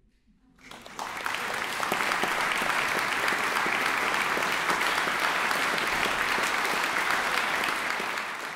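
Audience applauding in a concert hall: the clapping breaks out out of near silence under a second in, swells within half a second and holds steady.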